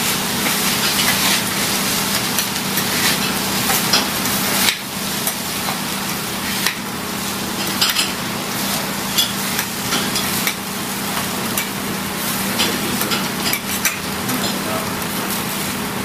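Yakisoba noodles and cabbage sizzling on a hot steel teppan griddle while two metal spatulas toss and scrape them. Frequent clicks and scrapes of metal on steel sound over the steady sizzle.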